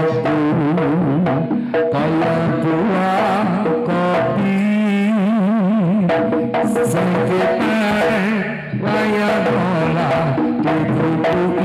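Live Javanese jaranan music: a melody sung with heavy, wavering vibrato over the gamelan ensemble and drums.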